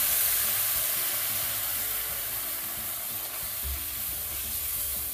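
Spiced onion masala in hot coconut oil sizzling hard after a splash of water, fading slowly as the water boils off, with a wooden spoon stirring it round a metal pot.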